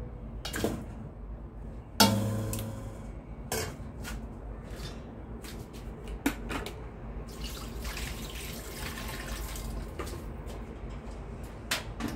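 Raw chicken wing pieces put into an empty stainless steel wok: a loud clank about two seconds in with the wok ringing briefly, then several softer knocks. Water is then poured into the wok for a few seconds in the second half.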